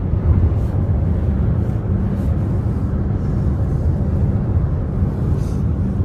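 Steady road noise and engine drone of a car travelling at highway speed, heard from inside the cabin: a continuous low rumble.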